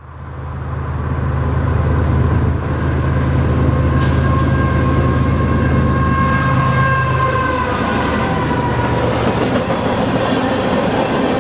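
Freight train passing close by. The diesel locomotives' engines drone loudly and fade in over the first couple of seconds, with a whine that drops slightly in pitch as they go by. About two-thirds of the way in the engine drone gives way to the rolling rumble and clatter of empty coal hopper cars.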